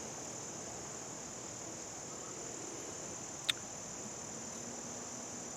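Crickets chirring steadily in the background, a continuous high-pitched drone, with a single short click about three and a half seconds in.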